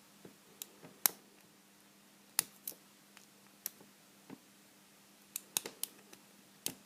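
Sharp metallic clicks of a lock pick working the pins and warding of a vintage Corbin pin-tumbler padlock, about a dozen irregular clicks. The loudest comes about a second in, with a cluster near the end.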